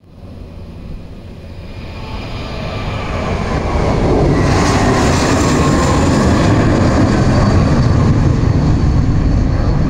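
Jet airliner flying low overhead near the airport: its engine noise builds over about four seconds into a loud, steady rumble, with a brief high whine around the middle.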